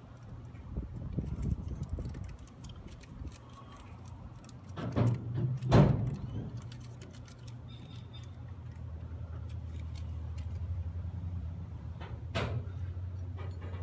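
Metal clinks and knocks of hand work on a pickup truck under repair, with two louder knocks about five to six seconds in and another near the end, over a low steady hum.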